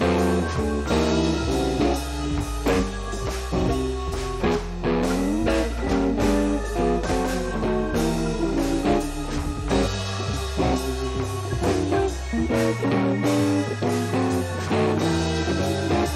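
Background music: a guitar-led instrumental piece, with plucked melody notes over a bass line and a steady beat.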